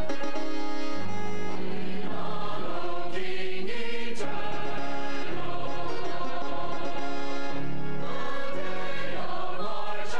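Church choir singing in parts, holding chords that change every second or two.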